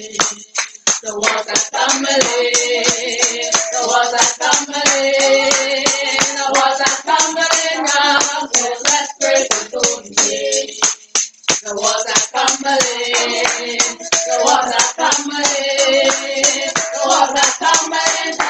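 Voices singing a gospel praise chorus in phrases, with hand claps keeping a steady beat throughout.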